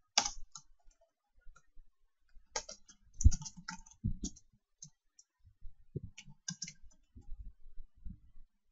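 Typing on a computer keyboard: irregular bursts of keystroke clicks with pauses between them, and a heavier knock about three seconds in.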